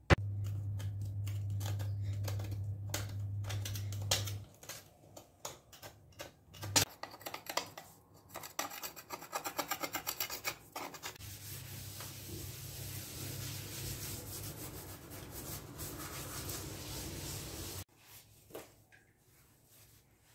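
Hand cleaning of kitchen cupboards and wall tiles: a cloth rubbing and scrubbing on hard surfaces, with scattered knocks and a quick run of rhythmic scrubbing strokes about nine seconds in. A steady low hum runs under it for the first four seconds and again through the second half.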